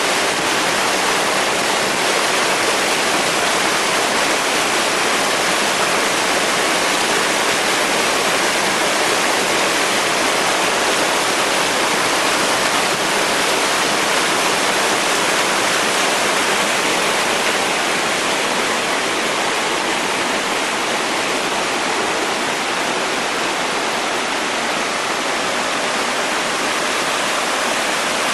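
Rain-swollen, muddy forest stream rushing steadily over rocks and small cascades.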